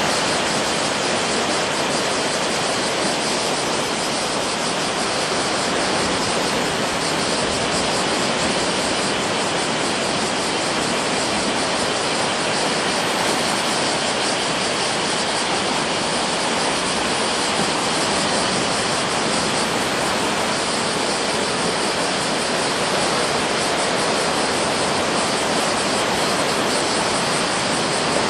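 Steady roar of surf from typhoon swell breaking along the beach, an even hiss with no single wave crash standing out.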